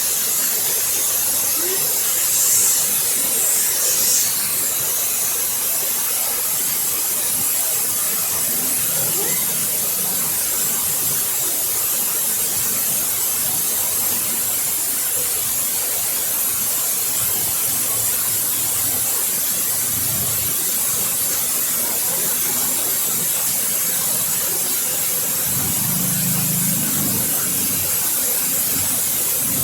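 Waterfall splashing: a steady, even rush of falling water, heavy in the highs.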